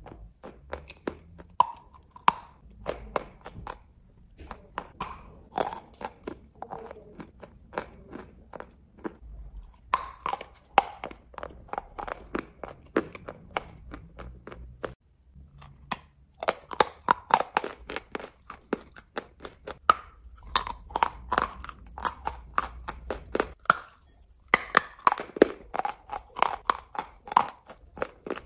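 Chalk coated with clay paste being bitten and chewed: a dense run of sharp crunches with short pauses every few seconds.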